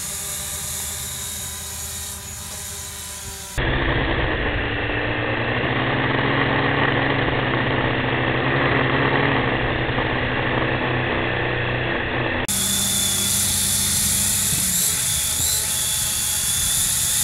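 Small quadcopter drones' electric motors and propellers buzzing steadily as they fly and hover. From about 3.5 s to 12.5 s the buzz is louder and duller, heard through a drone's onboard camera close to its own motors.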